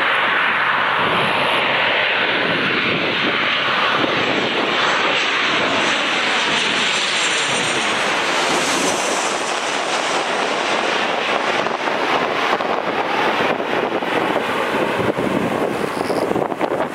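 Boeing 737-800's CFM56 turbofan engines on landing approach passing low overhead: loud, steady jet engine noise, with a high fan whine coming in about halfway through as it goes over, then the sound drawing away.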